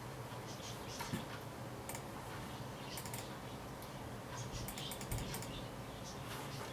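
Faint, irregular light clicks over a low steady hum.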